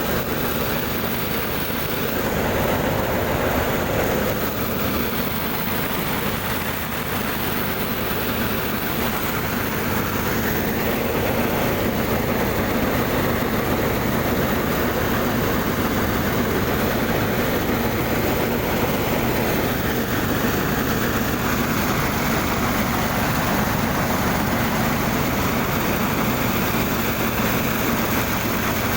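Motor-driven rice thresher running steadily, its engine humming under a constant mechanical rattle and whir.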